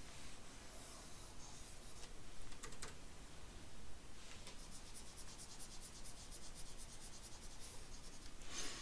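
A stylus tip scratching and tapping over the glass of a pen display during quick brush strokes, with a fast run of small ticks through the second half. A louder scrape comes near the end.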